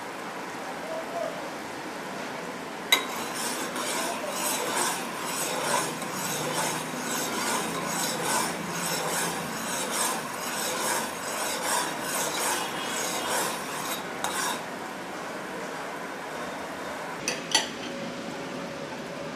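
Sugar syrup bubbling at a boil in a pan while a spoon stirs it, scraping against the pan in repeated strokes for about eleven seconds. The stirring starts with a sharp clink, and there are two more clinks near the end.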